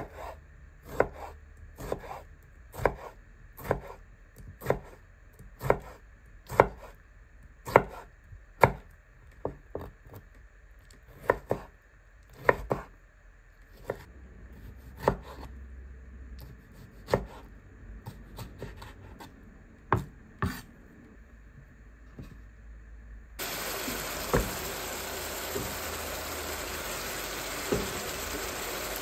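Chef's knife chopping tomatoes on a bamboo cutting board, about one chop a second, stopping about twenty seconds in. Near the end, ground beef sizzling steadily in a frying pan, with a couple of knocks as the chopped tomatoes are tipped in.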